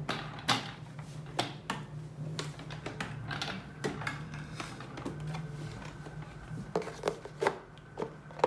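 Irregular hard plastic clicks and knocks from a Genesis Hydrovac Plus canister vacuum being taken apart by hand: a latch is unclipped, the motor head is lifted off the water tank, and the filter housing is handled.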